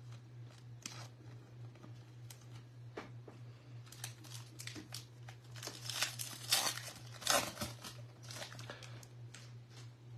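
A 2024 Bowman baseball card pack's wrapper being torn open and crinkled, with cards rubbing as they come out. The crackling is densest and loudest a few seconds in, over a steady low hum.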